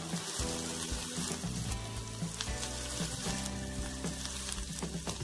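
Chopped onion sizzling steadily in hot mustard oil in a kadai as it is stirred with a spatula, over background music.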